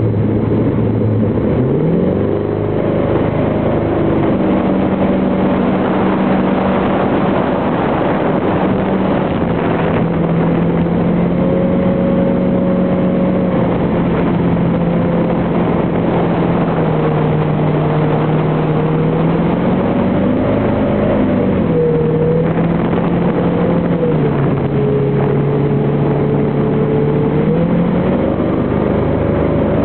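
Jet boat's engine running under way, its revs climbing about two seconds in, then easing off and picking up again a few times, over a steady rush of water.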